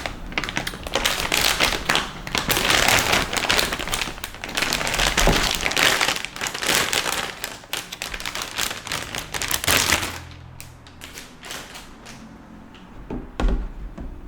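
Motherboard packaging being handled, crinkling and rustling continuously with many small clicks. About ten seconds in the handling stops, leaving only a few light taps.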